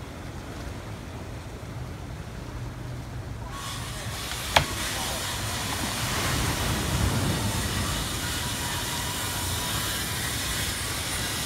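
Ocean surge rushing in around a dock: a low rumble of churning water, then about three and a half seconds in a loud, steady hiss of rushing, breaking water sets in. A sharp knock sounds about a second after the hiss begins.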